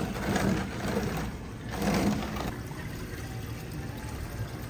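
Water running and splashing through a gem-mining sluice as mining rough is rinsed in a sifting screen, louder in the first half and then a steady trickle.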